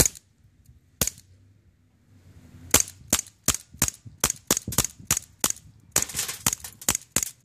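CO2 air gun fired repeatedly in semi-automatic: two sharp cracks about a second apart, then a rapid string of cracks at about three a second.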